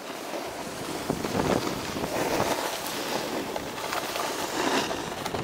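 Snowboard sliding over snow with wind rushing across the camera microphone: an even hiss without any tone that swells a little about a second in.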